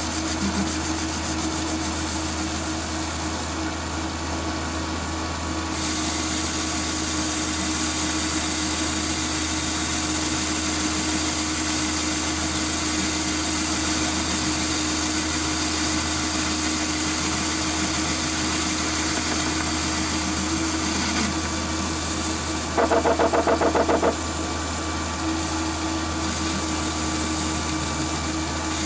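Metal lathe running steadily while a turning tool cuts the spinning backplate's outer diameter, a constant hum. A brief rapid rattle a little over twenty seconds in is the loudest moment.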